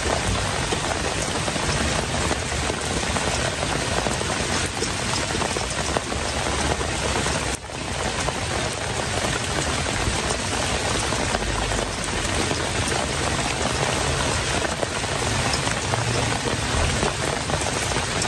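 Steady rain falling, an even, dense hiss of drops, with a brief dip in level about seven and a half seconds in.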